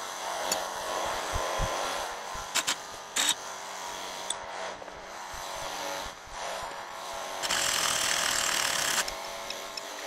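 Air impact wrench running against the bolts of a plow frame: a loud run of about a second and a half near the end, with a few sharp metal clinks around the middle, over a steady hum.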